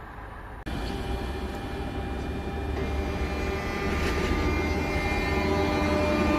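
Z2N double-deck electric train moving off along the platform, with its traction motors whining in steady tones over wheel-on-rail noise and growing louder. The sound cuts in abruptly under a second in.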